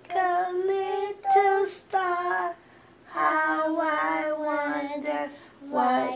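A toddler singing to herself. There are four short sung phrases, a brief pause, then one long line of held notes from about three seconds in, and a short phrase near the end.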